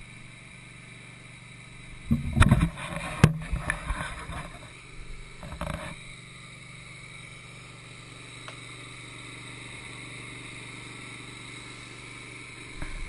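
Wood-Mizer LT15 sawmill running steadily between cuts, with a cluster of sharp wooden knocks and clunks, the loudest a little over two seconds in.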